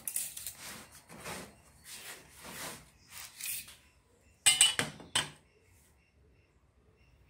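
Hand tools being handled on a plywood board: several short scraping and rustling sounds as a tape measure is used and put away, then a steel rule and square set down on the wood with a quick clatter of about three sharp knocks.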